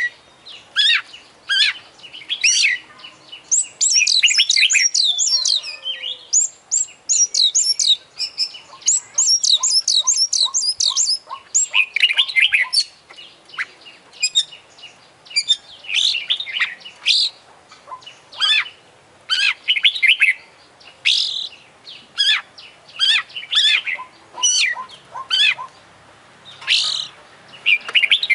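Oriental magpie-robin (kacer) singing energetically: a varied song of loud whistled phrases broken by fast runs of quickly repeated rising notes.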